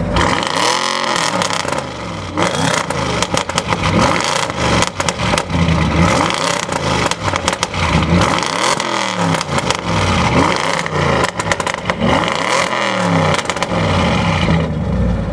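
Tuned Audi RS6 C7's twin-turbo 4.0 V8 through a decatted Milltek exhaust, revved hard about six or seven times, the pitch rising and falling with each rev. From about two seconds in, a rapid run of crackles and pops rides over the revs and stops just before the end.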